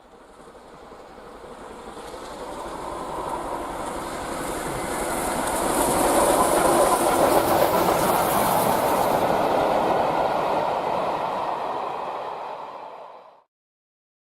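Train running by with a clickety-clack rattle, growing steadily louder to a peak past the middle, then cut off suddenly near the end.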